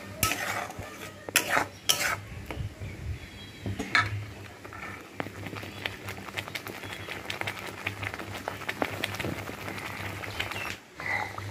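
Long metal spatula stirring and scraping a thick spice paste in a metal kadai, with sharp clinks of metal on metal, loudest in the first few seconds, and many small scrapes and ticks. A low steady hum sits underneath.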